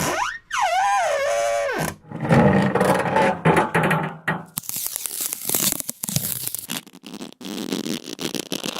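A run of squeak and creak sound effects: a pitched squeal that glides down and wavers in the first couple of seconds, then a rough, pulsing creak, then a long grating, crackling creak made of many short snaps.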